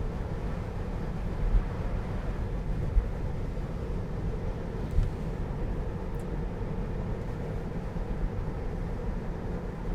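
Road and tyre noise inside the cabin of a moving electric Tesla Model 3: a steady low rumble with no engine sound, broken by a few short low thumps, the sharpest about 3 and 5 seconds in.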